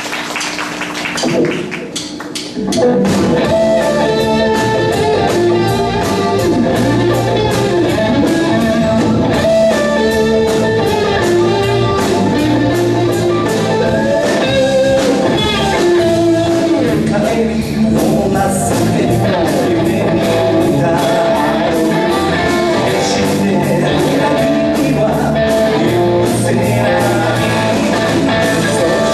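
A band playing a song live, with guitar prominent. A quieter opening gives way to the full band coming in loud with a steady beat about three seconds in.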